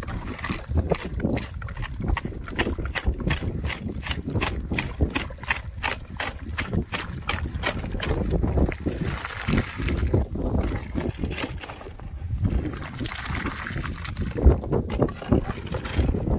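Shovel mixing wet cement in a metal wheelbarrow: quick chopping strokes into the mix, about four a second, for the first half, then slower scraping and sloshing turns of the wet mortar.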